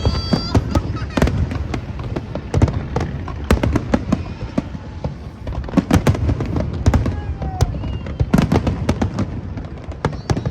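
Aerial fireworks display going off continuously: rapid, irregular bangs and crackles over low booms, with no break.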